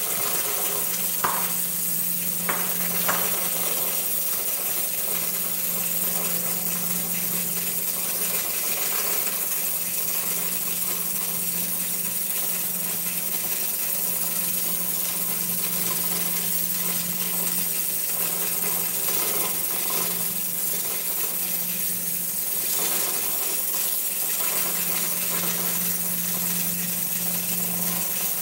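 Pressure cooker on a lit gas burner: a steady hiss with a low hum underneath. A few light clicks come in the first three seconds.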